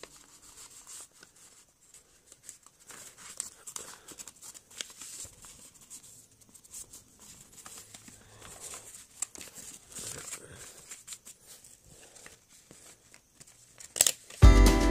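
Stiff paper rustling and crinkling in irregular soft crackles as a pleated paper fan is handled and its folds pressed. Near the end a sharp click, then music starts loudly.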